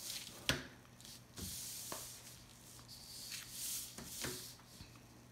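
Sheets of tracing paper rubbing and rustling as they are handled and slid across a desk, with a few light knocks.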